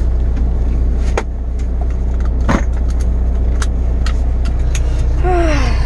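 Semi truck's diesel engine idling, a steady low drone heard inside the cab, with a few sharp clicks over it.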